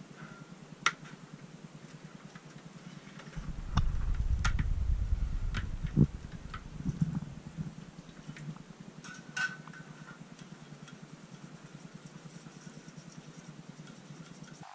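Workbench handling noises: a few sharp clicks and knocks as a plastic bottle and a steel bowl are handled, with a low rumble for a couple of seconds near the middle, over a faint steady background hum.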